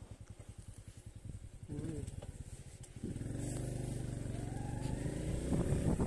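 Small motorcycle engine idling with an even putter, then revving up about three seconds in as the bike pulls away, its pitch rising as it gathers speed.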